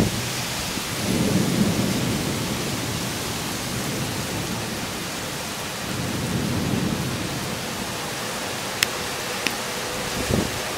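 Heavy summer downpour pouring steadily, with low rolls of thunder swelling about a second in and again around six seconds. Two sharp clicks near the end.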